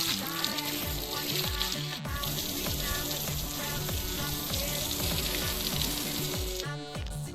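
Background hip-hop music with deep falling bass drops, over a steady hiss that stops abruptly near the end.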